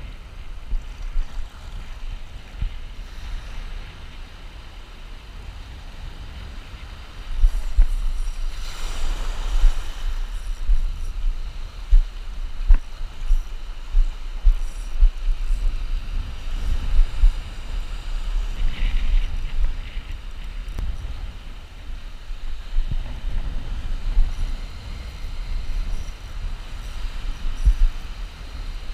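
Wind buffeting the action camera's microphone in a fluttering low rumble, over the rush and fizz of shallow surf washing in and out. The surf gets louder about seven seconds in, with a broad wave wash a second or two later.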